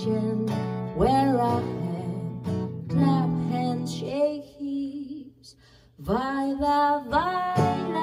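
A woman singing while strumming an acoustic guitar. About four seconds in the strumming stops under a held sung note, there is a short near-silent pause, and voice and guitar come back in together around six seconds.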